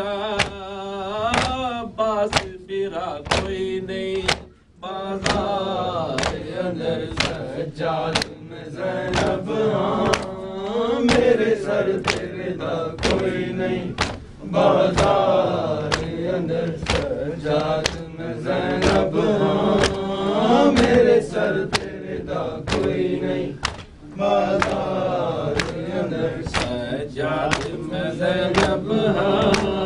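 A man chanting a noha, a Shia mourning lament, with other voices joining in. Sharp hand slaps on chests (matam) keep a steady beat under the chant.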